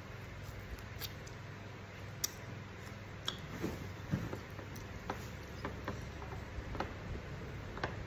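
Close-up eating by hand: scattered small wet clicks and smacks from chewing, with fingers wiping and scraping a plate, about one click a second.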